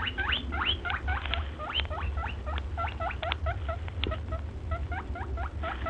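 Guinea pig wheeking: a fast run of short squeals rising in pitch, about four or five a second, over a steady low hum.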